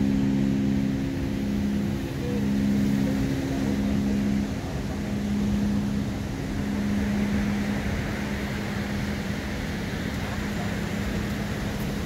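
A steady mechanical hum of a few held low tones over a continuous rushing noise; the upper tones fade out about four seconds in and a single low tone carries on.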